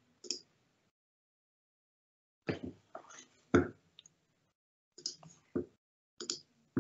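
Dead silence on a video-call line, broken by about eight short, clipped sounds that cut in and out. Music starts at the very end.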